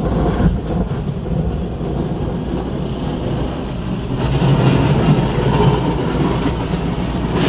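Audi car being driven, heard from inside the cabin: a steady low engine and road rumble that grows louder about four seconds in.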